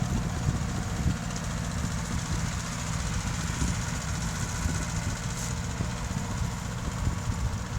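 Mitsubishi tractor engine running steadily with a low, even rumble.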